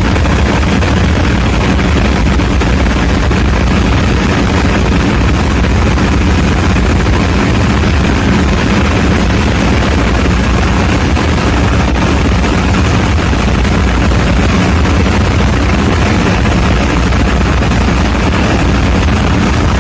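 Ship's diesel generator engine running steadily, a loud constant drone of engine-room machinery with a strong low hum.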